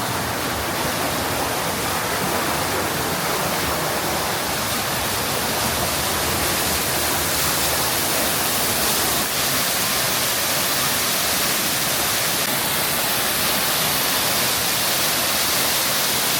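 Steady rush of falling, splashing water, unchanging throughout.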